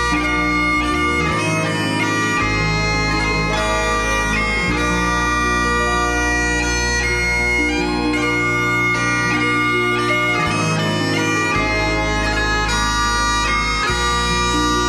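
Irish bagpipe music: a piped melody of held notes over a low bass that changes note every few seconds.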